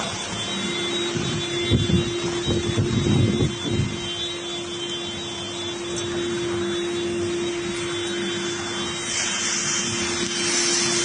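Steady rush of storm wind and heavy rain, with gusts buffeting the microphone between about two and four seconds in, over a steady low hum.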